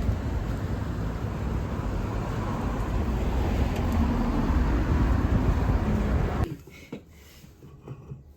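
Steady rumbling vehicle and traffic noise, cutting off abruptly about six and a half seconds in.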